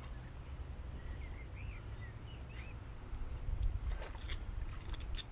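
A steady low rumble with a few faint bird chirps, and near the end several light clicks and scrapes of a knife packing grease into a narrowboat's brass stern-gland greaser.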